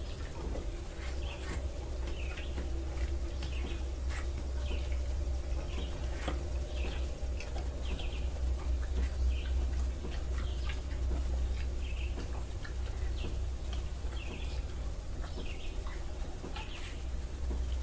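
Birds chirping in short, frequent calls over a steady low hum.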